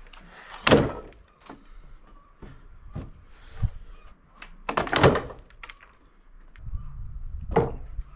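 Heavy thuds and knocks of sawn wooden slabs being handled and dropped onto a stack, the loudest about five seconds in. A low steady rumble comes in near the end.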